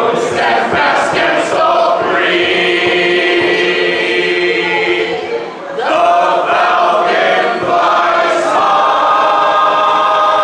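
Three singers, two women and a man, singing a cappella in harmony, holding long notes with a short break about halfway through.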